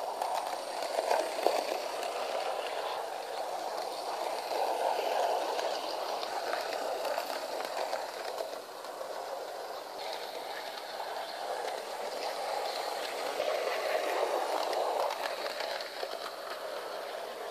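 Model 060-EA electric locomotive running along sectional track: a steady whirr from its five-pole motor and cardan drive, with the rumble of its wheels on the rails. The sound swells and fades as the locomotive travels along the track.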